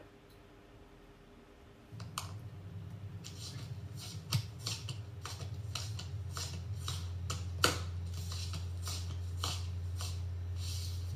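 Irregular sharp clicks, snips and scrapes of small objects handled on a tabletop, over a low steady hum that comes in suddenly about two seconds in.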